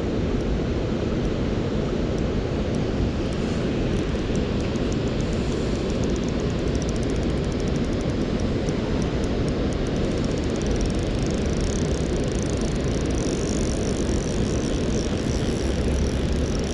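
Steady low rushing of river water pouring over a weir, even in level throughout.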